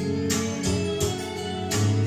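Music playing from a vinyl LP on a DIY turntable with a Denon tonearm: held notes over a steady beat.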